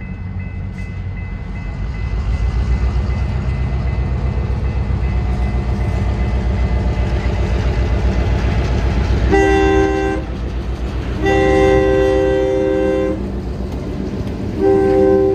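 Diesel freight train's engines rumbling, growing louder as it approaches. About nine seconds in, the lead locomotive's multi-chime air horn sounds three blasts: short, long, short.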